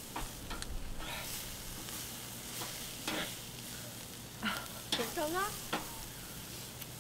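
Pork sizzling on a round grill plate while metal tongs turn the pieces, with clicks and scrapes of the tongs on the grill. A short run of high chirps about five seconds in.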